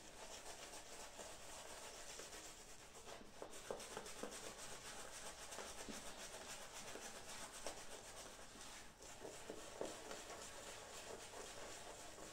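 Shaving brush swirling shave-soap lather on a stubbled face: a faint, steady rubbing with a few small crackles.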